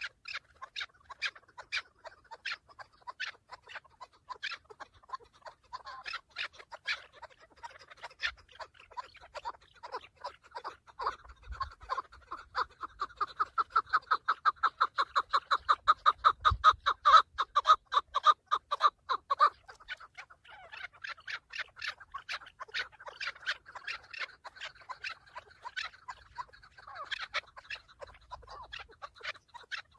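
Chukar partridge calling: scattered clucking notes that build into a fast, even run of chuck notes for about eight seconds in the middle, the loudest part, then settle back into scattered clucks.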